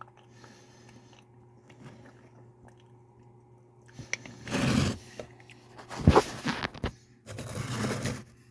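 An ice cream carton being handled and its lid pulled off: three short bursts of scraping and crinkling in the second half, the middle one with sharp clicks.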